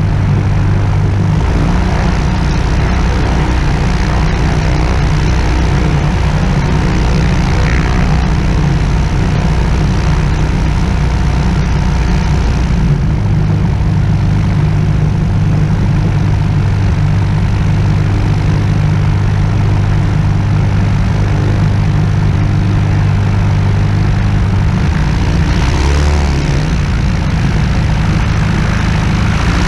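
Sonex light aircraft's engine and propeller running at low taxi power, heard from the airframe, with the engine speed stepping slightly up or down a few times.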